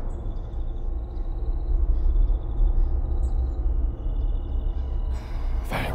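A low, steady rumbling drone from the film's horror sound design, with a faint high steady tone above it and a short sharp sound near the end.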